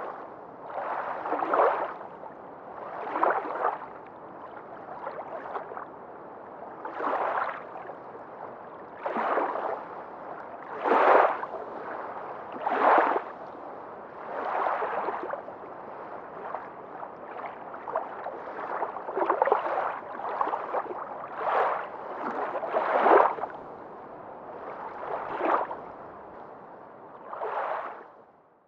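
Underwater sound effect: water noise that swells and fades in repeated surges, roughly one every two seconds.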